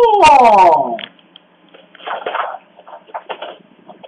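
A dog howling: one long howl that slides down in pitch and stops about a second in, followed by a few faint rustles.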